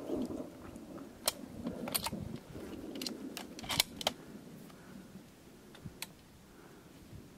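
A series of short sharp clicks and knocks, single ones spread out and a close group of three about four seconds in, over a faint low rumble that dies away in the first seconds.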